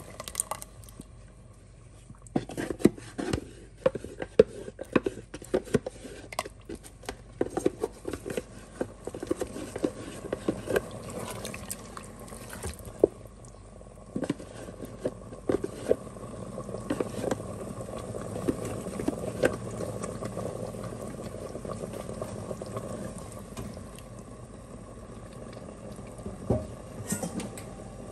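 A plastic slotted spoon stirs chunks of chicken and tripe in tomato sauce in the metal inner pot of an electric pressure cooker, with repeated clacks and scrapes against the pot. Through the middle stretch the clacks thin out and a steady bubbling of the sauce takes over, with a few more clacks near the end.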